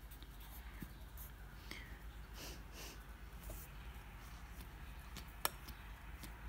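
Pencil scratching faintly on a workbook page as figures are written out, then a single sharp click about five and a half seconds in.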